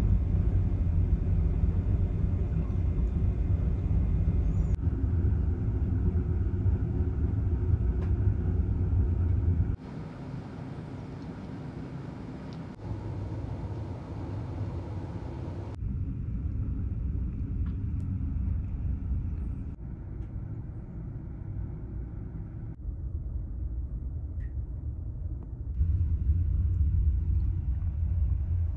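Low, steady rumble of the Pan Star Dream ferry's engines heard from inside the ship while under way. It drops and rises abruptly several times.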